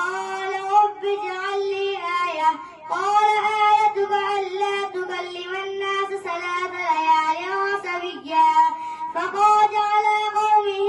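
A boy reciting the Quran in a melodic chanted style (qirat), holding long notes with ornamented turns in pitch, with short pauses for breath twice.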